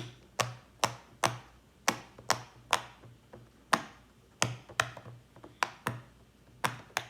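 Silicone pop-it fidget toy being pressed bubble by bubble. It gives a row of sharp pops, roughly two a second at uneven spacing.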